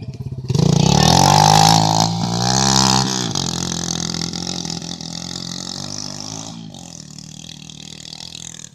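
A vehicle's engine revving hard about half a second in, with a loud hiss over it for the next couple of seconds. The engine note then drops and fades steadily as the vehicle moves away.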